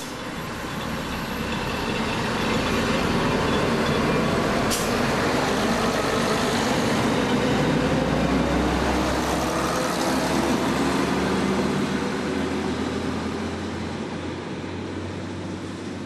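Fiat ALn 668 diesel railcar of the Italian State Railways running under power past a platform, its diesel engine and wheels growing loud as it comes close and fading as it draws away. A single sharp click about five seconds in.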